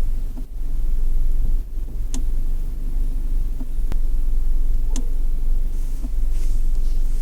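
Car running with a steady low rumble, with about half a dozen sharp clicks at uneven intervals: the abnormal noise that the owner puts down to the transmission.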